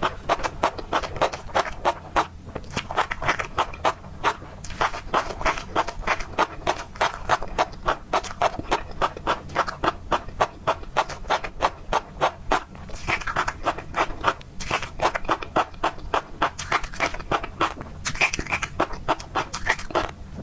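Close-miked chewing of tobiko (flying-fish roe): a steady run of crunchy pops and clicks, about three or four a second, as the tiny eggs burst between the teeth.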